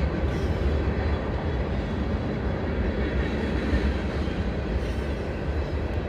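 Freight train cars rolling past: a steady rumble of steel wheels on the rails, mixed boxcars, covered hoppers and tank cars.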